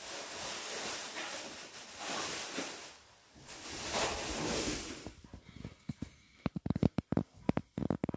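Rustling in two long stretches, then a quick irregular run of sharp knocks and clicks, like something being handled.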